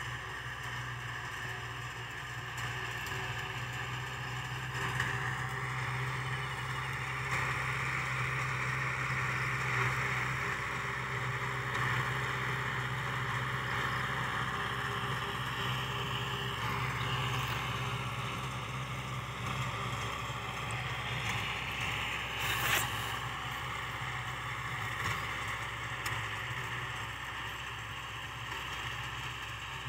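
Kubota L5018 tractor's diesel engine running steadily under load, driving a rotary tiller through grassy soil in first gear, heard from across the field. One sharp tap about three-quarters of the way through.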